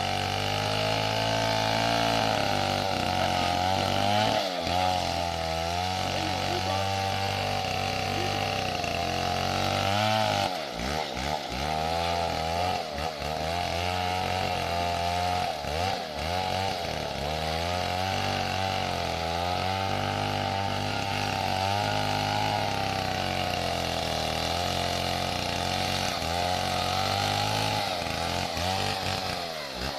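Stihl 070 two-stroke chainsaw running, its engine note wavering up and down throughout, with a few brief dips about ten to sixteen seconds in.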